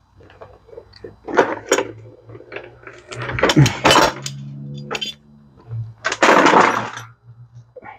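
Plastic toolbox and clear plastic screw organizer cases being handled: a run of clacks and knocks, with two longer rattles of loose screws about three and six seconds in.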